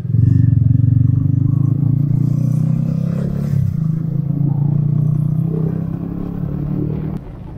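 Motorcycle engine running loud and steady at a low, even pitch. It comes in suddenly and drops away about seven seconds in.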